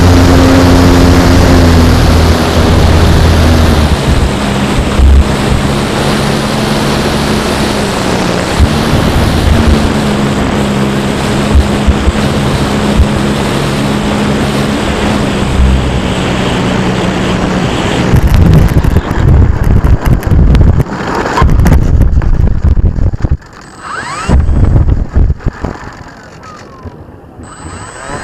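Electric motor and propeller of a Durafly T-28 Trojan foam RC model running at low throttle as it taxis, a steady hum that dips slightly in pitch about two seconds in. After about 18 seconds the hum gives way to gusty wind buffeting on the onboard camera's microphone, which drops in level near the end.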